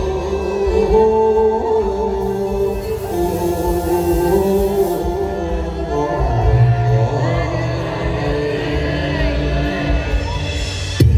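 A singer holding long, wavering notes over instrumental accompaniment. Near the end a sudden low thud comes in and opens a deep sustained tone.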